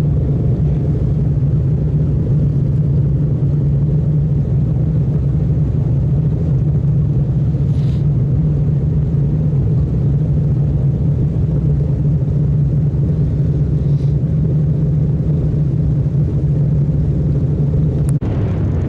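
Motorboat engine running steadily under way, a constant low drone mixed with the rush of water and wind, with a brief break near the end.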